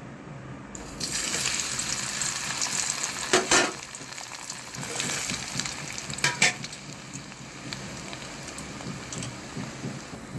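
Potato chunks hitting hot oil in a stainless steel wok: a loud sizzle starts about a second in, then settles into a steady frying hiss. Two short knocks sound against the pan along the way.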